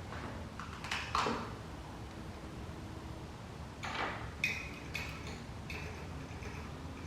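A few clicks, then a faint high tone that starts and stops several times, with no engine running: a 2017 Honda Grom being cranked on a weak battery and failing to start.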